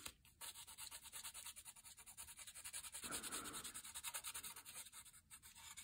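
Black watercolour pencil scratching on cardboard in quick back-and-forth shading strokes, several a second, faint, with a brief pause just after the start and another near the end.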